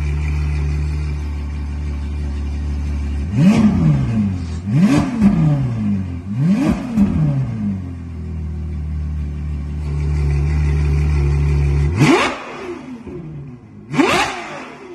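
Ferrari 812 GTS's naturally aspirated V12 through an ARMYTRIX catless valved exhaust, idling. About three seconds in it is revved three times in quick succession, each rev shooting up in pitch and dropping back. It settles back to idle, then is revved sharply twice more near the end.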